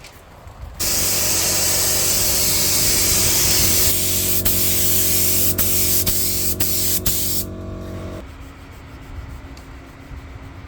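Paint being sprayed onto a car's body panel during a scratch repair: a loud, even hiss that starts suddenly about a second in and cuts off after about six and a half seconds, with a few sharp clicks along the way. A steady machine hum runs underneath and stops shortly after the hiss.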